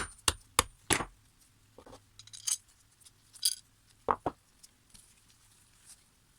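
Small metal clinks and taps from Felco No. 2 secateur parts being handled: a quick run of clicks at first, then single clinks spaced a second or so apart.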